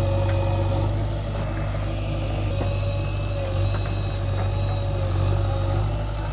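A heavy diesel engine running steadily at a constant speed, a low drone with a steady higher tone above it.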